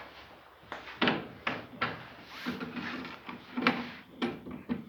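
Irregular metallic knocks and clicks, about eight in all, as the bolts holding an outboard engine are worked loose with a tool.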